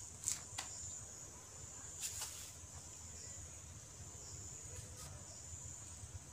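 A steady, high-pitched insect trill, with a few light taps of the calf's hooves on the shed floor near the start, about two seconds in and near five seconds.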